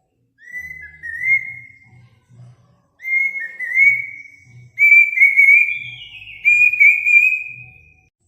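Bird song of clear whistled notes, sliding slightly in pitch and coming in phrases that grow longer and louder, with a higher note near the end. A faint low pulsing repeats underneath.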